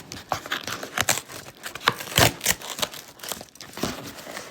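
Parcel packaging crinkling and crackling in irregular bursts as hands struggle to tear open a resealed mail package, loudest about halfway through.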